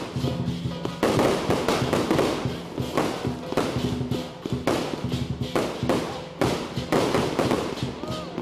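Fireworks going off in quick succession: irregular bangs and crackles, roughly one a second, each trailing off into a short hiss, with music playing underneath.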